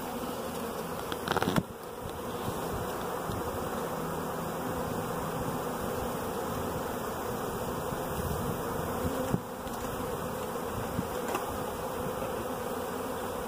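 A honey bee swarm buzzing: a steady, even drone of many bees flying in the air around the swarm cluster.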